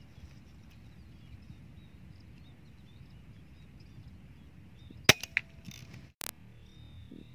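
Air rifle shot about five seconds in: one sharp crack followed by a couple of quick smaller clicks, over a steady low rumble of wind on the microphone.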